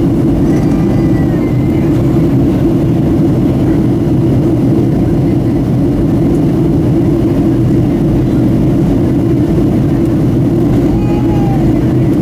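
Steady, loud cabin noise of a Boeing 737-700 airliner in flight: the drone of its CFM56 turbofan engines and airflow, even and unchanging.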